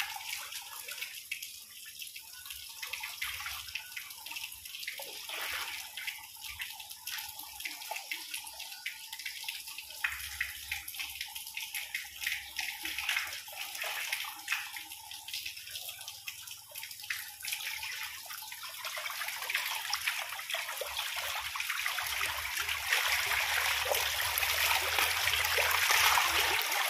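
Water splashing and sloshing as a dense crowd of fish thrashes in the shallow water left in a drained concrete pond, louder near the end.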